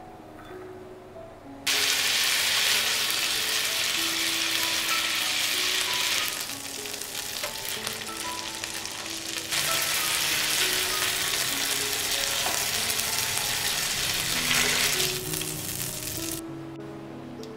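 Scored chicken breasts frying in hot oil in a frying pan: a loud sizzle that starts suddenly about two seconds in, eases off for a few seconds in the middle, and cuts off near the end. Soft background music plays throughout.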